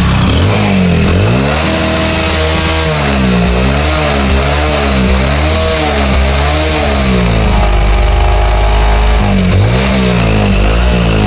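Hero Passion Pro motorcycle's single-cylinder four-stroke engine being revved in quick repeated throttle blips, its pitch rising and falling about once a second, held steady for a moment about eight seconds in, then blipped again. The engine makes a lot of noise, as the mechanic puts it.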